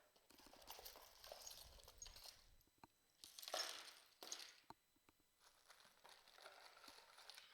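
Quiet rustling and light clinking of a handful of costume jewelry being picked out of a box and handled, in several short stretches with small clicks.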